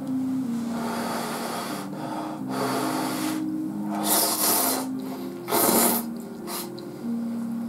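Cup-ramen noodles slurped from chopsticks: four noisy slurps, the last two the loudest, over a simple background melody.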